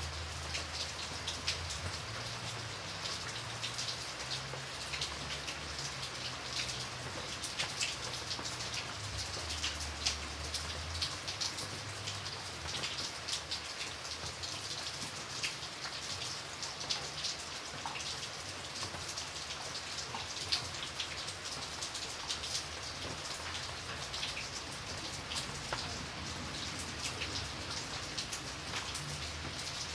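Light rain falling steadily, a soft hiss of many small drops with frequent individual drop ticks on a surface.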